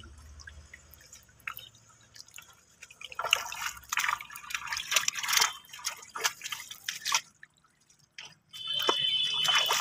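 Shallow muddy water splashing and dripping as hands dig through the mud, in quick irregular splashes from about three seconds in. A brief high steady tone comes in near the end.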